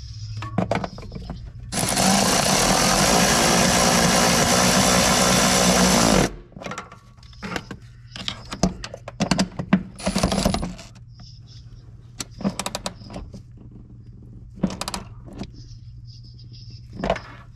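Cordless ratchet running for about four and a half seconds, driving in a bolt that holds up the fuel tank, then a second short run about ten seconds in. Clicks and knocks of the socket and tools come between the runs.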